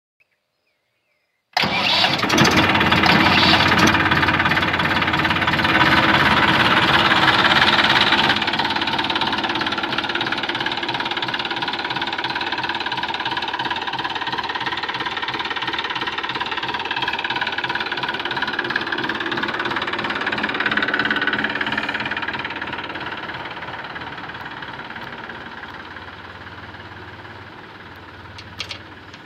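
Massey Ferguson 241 DI tractor's three-cylinder diesel engine starting about a second and a half in, then running steadily. It is loudest over the first several seconds and grows gradually quieter near the end.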